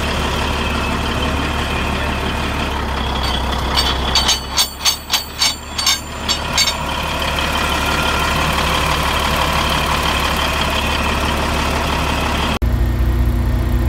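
A large engine idling steadily. Between about four and seven seconds in comes a run of about eight sharp, evenly spaced pulses, about three a second. Near the end the sound changes abruptly to a deeper steady hum.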